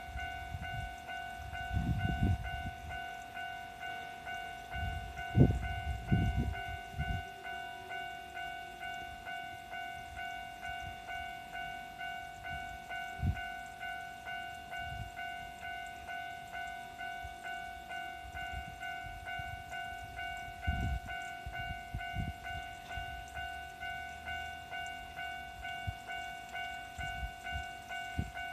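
Japanese railroad level-crossing warning bell ringing a steady, evenly repeated electronic ding (the "kan-kan" of a crossing). A few low thumps come and go underneath.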